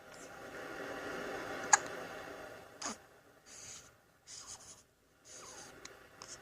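Baby hiccups: a sharp, short hic about one and a half seconds in, the loudest sound, and another quick one about a second later, amid soft rustling and short breathy sounds.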